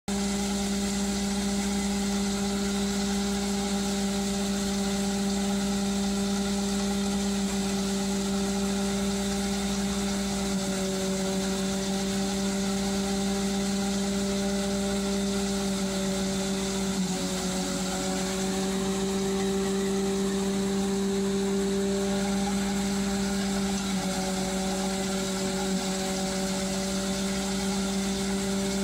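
Tractor-driven grinder mixer running steadily while loose hay is fed into its hammer mill, a constant machine hum. Its pitch sags slightly twice in the second half.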